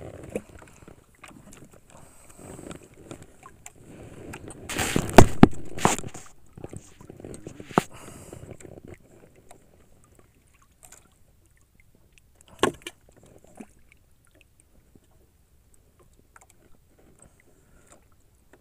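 Irregular knocks and clatter on a small wooden fishing boat, over low water sloshing. The loudest cluster of knocks comes about five seconds in, then it goes mostly quiet apart from one sharp knock later on and a few faint clicks.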